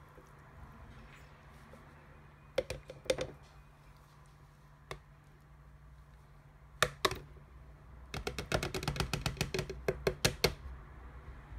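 Plastic blender jug knocking and tapping against a pint glass as thick blended ice slush is tipped out: a few scattered knocks, then a quick run of taps from about eight seconds in to about ten and a half seconds.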